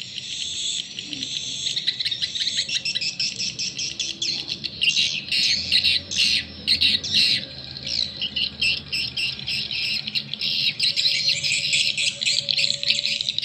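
Recorded edible-nest swiftlet calls played through a pair of small horn tweeters on a swiftlet-house amplifier: two lure tracks at once, making a dense, high twittering chatter, with sharper, louder chirps in the middle.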